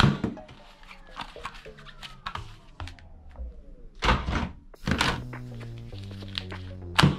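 Plastic toy guns knocking and clattering against each other and the cardboard box as they are put in and rummaged through, with loud thunks right at the start, about four and five seconds in, and near the end. Background music plays underneath.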